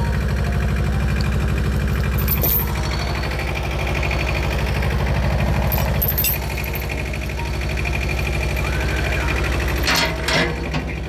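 An engine running steadily at low speed, with a few clanks and rattles about two seconds in, around six seconds and near the end.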